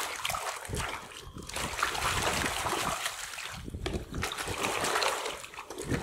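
Hands scrubbing a muddy toy in shallow pond water, splashing and sloshing unevenly, pausing briefly twice.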